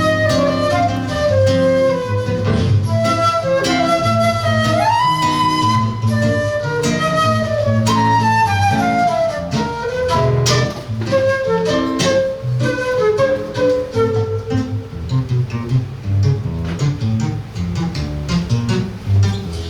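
Flute playing a melody with an upward slide about five seconds in, over 7-string guitar accompaniment and low plucked double bass notes, in a live acoustic ensemble performance.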